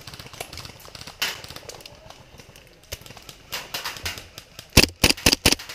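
Footsteps and gear rustling of an airsoft player on the move, with four sharp steps in quick succession near the end.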